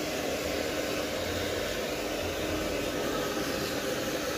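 Handheld hair dryer running steadily, blowing onto a dog's fur: an even rush of air with a faint motor hum underneath.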